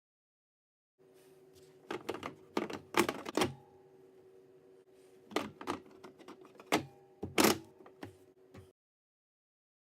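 Metal clicks and clacks from a seat bracket's slider and locking mechanism as it is worked through its locking positions. About a dozen sharp knocks come in uneven clusters, the loudest about three and seven and a half seconds in, over a faint steady hum.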